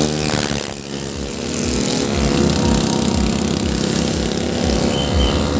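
Motorcycles and other traffic passing on a highway, their engines running steadily; one motorcycle's engine note drops as it goes by within the first second.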